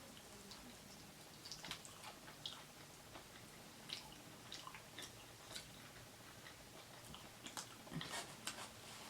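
Faint chewing and mouth clicks from eating chicken wings, a scatter of soft irregular clicks.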